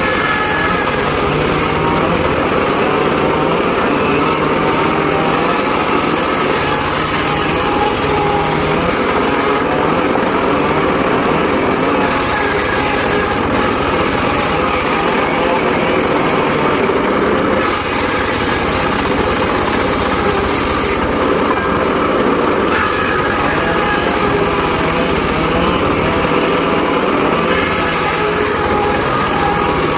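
Homemade circular saw rig running steadily under power, sawing sengon laut timber. Its high band drops and returns every few seconds.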